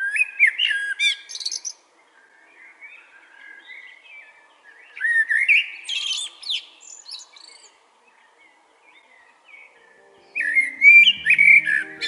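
Male Eurasian blackbird singing: three whistled, gliding song phrases, one at the start, one about five seconds in and one near the end, each running into higher twittering, with softer song between them.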